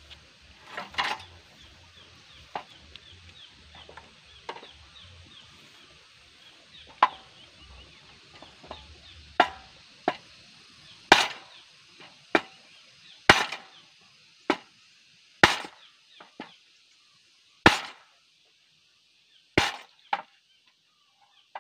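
Hammer blows on the steel handlebar frame of a Quick E85 hand tractor, straightening a part bent when the tractor rolled over. A dozen or so sharp metallic strikes come one every second or two, harder in the second half.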